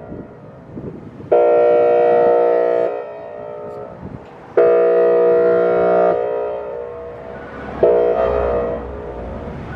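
Whelen Vortex R4 outdoor warning siren sounding its airhorn tone: three blaring blasts of a steady chord, each about a second and a half long and coming roughly every three seconds, with echoes in the gaps between them.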